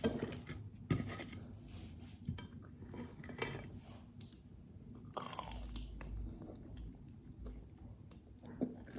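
A person biting into and chewing a Korean corn dog, the fried batter coating giving irregular quiet crunches between stretches of chewing.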